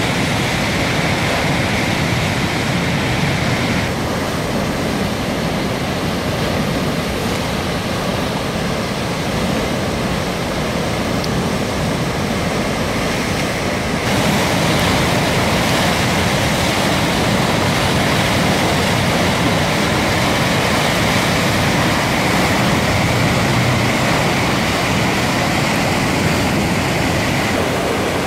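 Floodwater in a river in spate rushing over a weir and through the channel below: a loud, steady rush of white water, a little louder from about halfway through.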